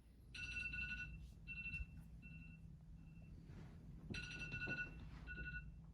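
A phone's electronic ring tone, a high steady-pitched beeping sounding in repeated bursts, faint, over a low hum.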